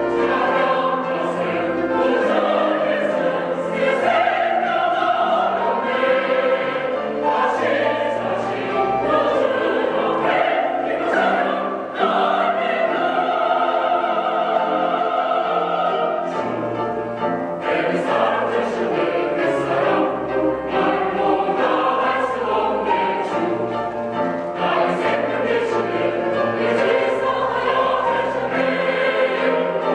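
Church choir singing a hallelujah anthem, many voices in sustained harmony.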